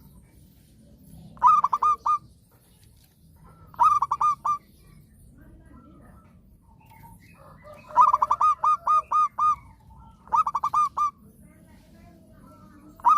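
Zebra dove (perkutut) cooing: short phrases of quick staccato notes, repeated every two to four seconds, with one longer phrase in the middle.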